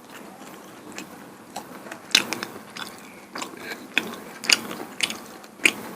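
Close-miked eating sounds: chewing duck curry and rice-flour pitha, with sharp, irregular clicks and crunches every half second or so.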